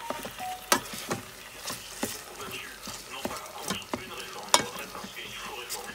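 Plastic spatula stirring diced lamb and lemongrass in a rice cooker's nonstick inner pot, knocking and scraping against the pot in irregular strokes, over a light sizzle of the meat frying.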